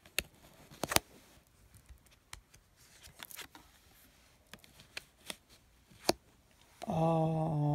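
Tarot cards being handled on a table: scattered soft clicks and taps of card against card. Near the end a woman's voice holds a long, steady 'ohh'.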